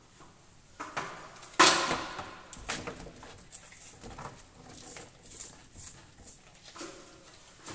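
A paintbrush and a small paint roller being handled in a paint tray: a sharp knock about one and a half seconds in, then a run of scraping and wet patting sounds as the roller is worked in the paint.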